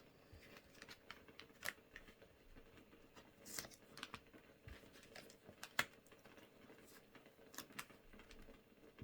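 Tarot cards being handled: faint, scattered soft snaps and rustles as cards are drawn and laid down, about half a dozen sharp ones.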